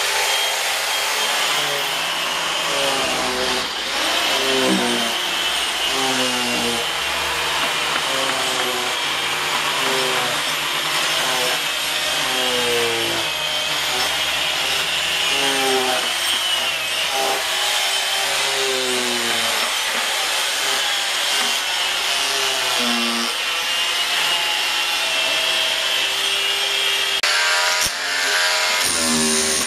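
Electric power tools cutting and grinding into wooden logs during wood carving: a steady, continuous grinding noise. The sound changes near the end as a corded electric drill bores into a log.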